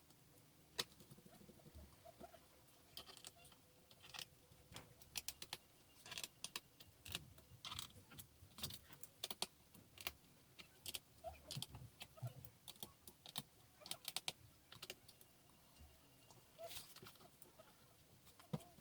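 Irregular small sharp clicks and taps of a laptop's plastic and metal parts being handled during disassembly, most dense through the middle.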